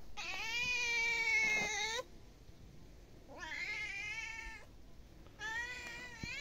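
A cat giving three long, drawn-out meows, each a second or more long.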